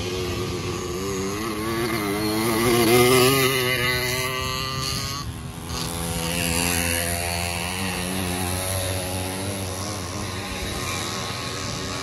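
Small two-stroke motorized-bicycle engines buzzing as racers ride by, their pitch wavering with the throttle. One is loudest about three seconds in and fades, and another comes up a little later.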